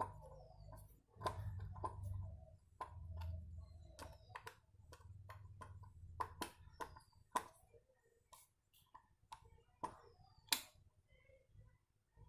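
Irregular sharp clicks and taps of small parts of a motorcycle speedometer being handled, with a low rumble in the first half and a few faint bird chirps.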